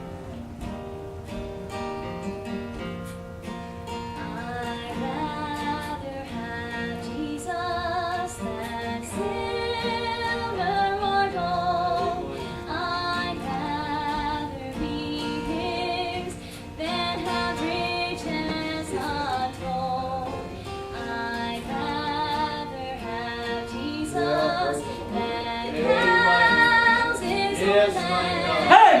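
A woman's voice singing a gospel song with vibrato, accompanied by acoustic guitar; the guitar plays alone for the first few seconds before the voice comes in.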